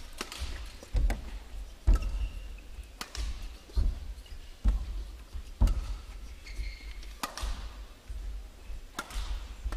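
Badminton rally: sharp racket strikes on the shuttlecock about once a second, with low thuds of the players' footwork on the court floor.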